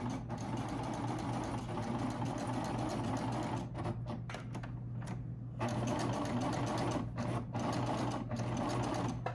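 Baby Lock Triumph serger running, stitching along the curved edge of knit fabric with the differential feed set to gather. The machine stops and restarts briefly a few times.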